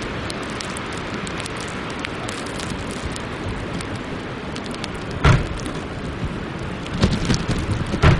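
Steady hiss of wind and sleet with small ticks of sleet striking. A heavy thump about five seconds in and a cluster of thumps near the end, as the snow-laden rear hatch of a Tesla Model S is opened and slammed shut to knock the snow off.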